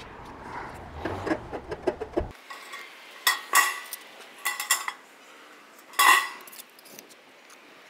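Hand tin snips cutting the end of a steel barge capping: a series of sharp metallic snips, each with a brief ring from the sheet metal, the loudest about six seconds in.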